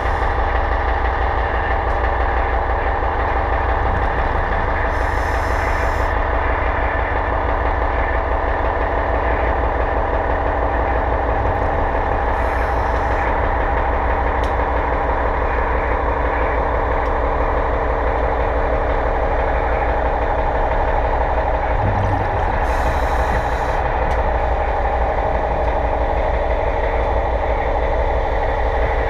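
Steady mechanical drone of machinery heard underwater, with three brief hissing bursts along the way.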